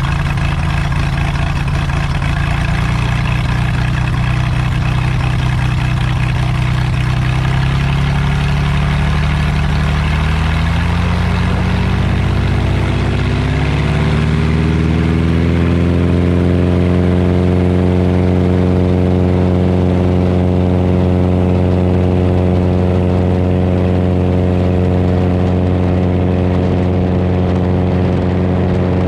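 Cessna 210D's six-cylinder Continental engine and propeller running on the ground. The engine speeds up smoothly over several seconds from about eight seconds in, then holds steady at the higher speed.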